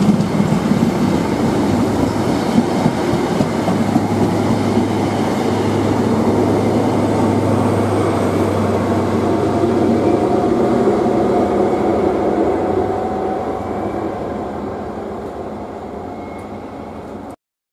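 High Speed Train of Mk3 coaches passing, with the rumble of wheels on the rails, then its rear Class 43 diesel power car going by with a low engine hum. The sound fades as the train moves away and then cuts off abruptly near the end.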